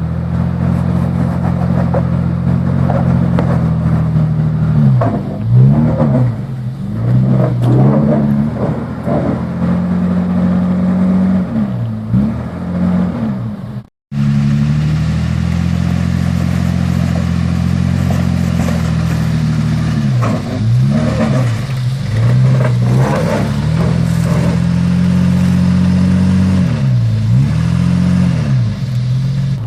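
Nissan Patrol's TB48 4.8-litre straight-six petrol engine working under load while rock crawling, its revs rising and falling over and over, with occasional knocks. The sound cuts out for an instant about fourteen seconds in.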